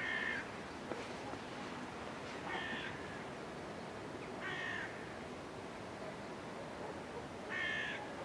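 A bird calling outdoors: four short calls, each a fraction of a second long, spaced two to three seconds apart.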